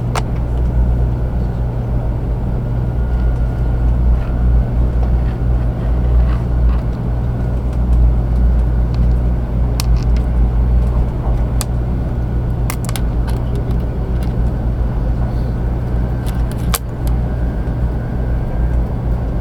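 Cabin noise inside a JR 500 series Shinkansen train while it runs: a steady low rumble with a faint high steady tone over it. A few sharp clicks come in the second half.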